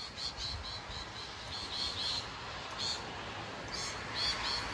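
Birds chirping, a run of short high notes, often in pairs, every fraction of a second, over the steady hiss of rain.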